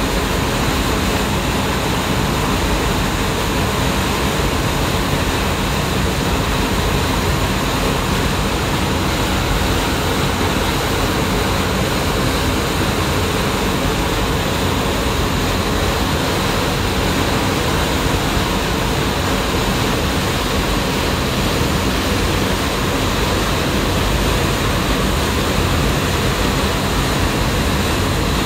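A ferry's engines running steadily under way, with the rushing, churning water of the propeller wash at the stern.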